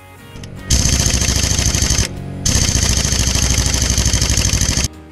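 Power impact wrench hammering in two bursts, a short one and then a longer one after a brief pause, working the inner crankshaft pulley of a Volvo Penta TMD 22 marine diesel loose.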